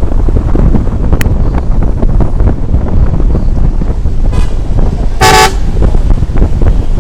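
Heavy wind buffeting the microphone on top of a moving bus, with a vehicle horn honking: a faint short toot about four seconds in, then a louder half-second blast just after.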